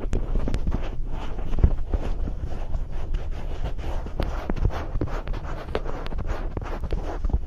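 Powder being massaged over the back of a microphone ear: close, dense rubbing and crackling with many small clicks and soft low thumps.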